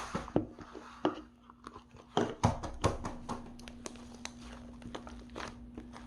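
Butter slime being squeezed and pressed by hand, giving irregular sticky clicks and soft pops, the loudest a cluster about two to three seconds in.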